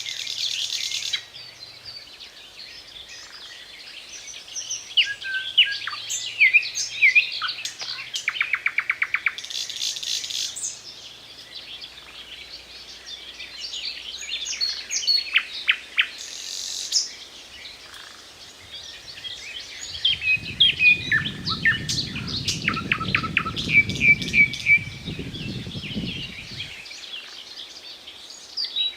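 Nightingale singing loud, varied phrases separated by short pauses, including a fast, even clicking trill. A low rumbling noise comes in the second half for several seconds.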